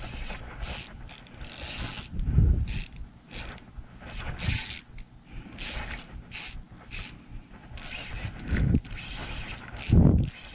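OXGN Musky fishing reel clicking and ratcheting in short, irregular spurts as line is worked against a hooked fish, a golden trevally, during the fight. Two dull thumps stand out, about two seconds in and near the end.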